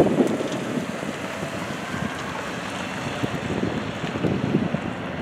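A car drives past close by at the start, its tyre noise the loudest sound, fading within about half a second. Then the steady rumble of the last cars of a double-stack intermodal freight train rolling away, with wind on the microphone.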